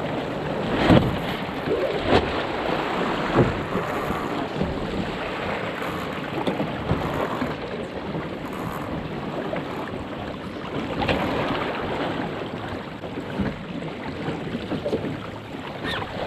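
Wind buffeting the microphone and water rushing along the hull of a National 18 sailing dinghy under way, with a few sharp knocks in the first few seconds.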